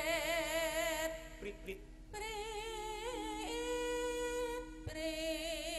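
A pesinden, a female Javanese gamelan singer, singing long held notes with a wide vibrato through a microphone, breaking off briefly about a second in and again just before the end.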